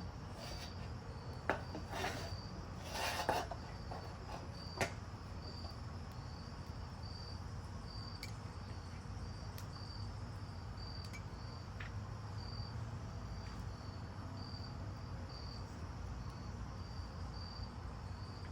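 Crickets chirping steadily outdoors, a high pulsing note about twice a second, with a few short knocks and clatters in the first five seconds.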